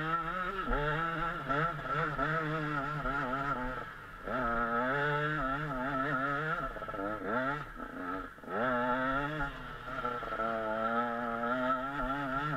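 KTM 125 SX two-stroke single-cylinder motocross engine being ridden hard, heard close up from the bike, its pitch rising and falling with throttle and gear changes. It drops off about four seconds in and again about eight seconds in, then climbs again.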